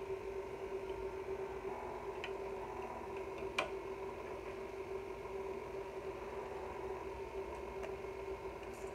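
KitchenAid stand mixer motor running steadily, driving the fruit and vegetable strainer attachment as it presses tomato chunks: a steady hum. A single sharp click about three and a half seconds in.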